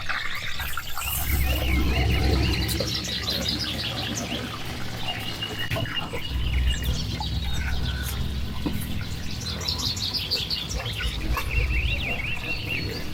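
Small birds chirping and twittering in quick runs of notes, with a few short held whistles. Under them, a low rumble swells up twice.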